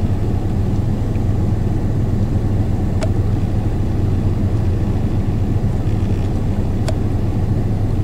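Steady low hum of an idling engine, with two short clicks about four seconds apart.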